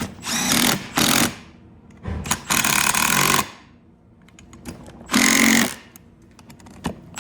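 Impact wrench run in four short hammering bursts, the longest about a second, with pauses between: suspension bolts being driven in as the knuckle is put back together.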